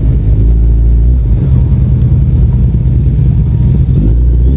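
Suzuki Hayabusa's inline-four engine running steadily as the bike is ridden slowly, heard from the rider's position.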